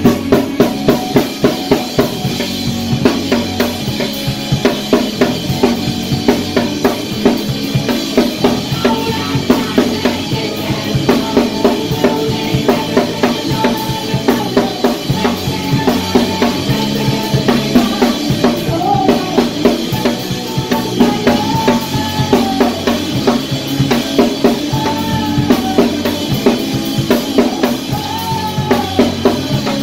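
Live rock band playing, led by a drum kit: bass drum, snare and cymbals played hard in a dense, driving beat. Pitched instruments hold sustained notes underneath, some of them bending in pitch.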